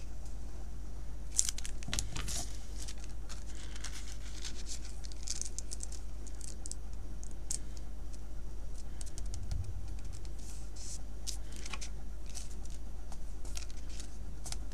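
Paper handling: soft, scattered rustles and crinkles as fingers press and smooth a thin translucent sheet and cardstock together over fresh glue, over a steady low hum.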